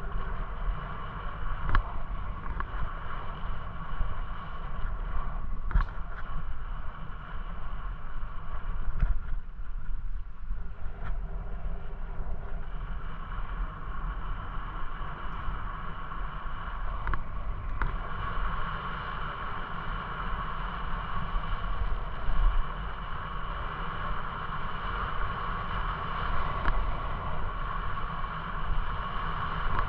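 Steady wind rushing over the microphone and tyres rumbling on a paved path while riding along it, with a few sharp knocks from bumps.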